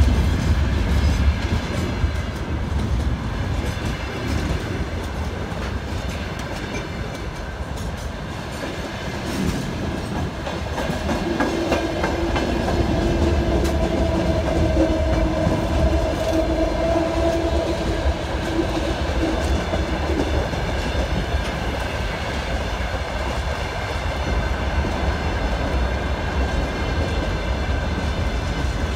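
Freight train's wagons rolling past close by: a steady rumble with the clickety-clack of wheels over rail joints. For several seconds in the middle, a steady pitched tone sounds over it.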